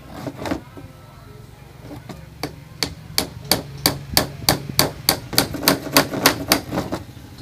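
Hammer driving a small headed nail into the corner joint of a sabino-wood picture frame. Two taps at the start, then a quick, even run of about fifteen strikes, roughly three a second, that stops shortly before the end.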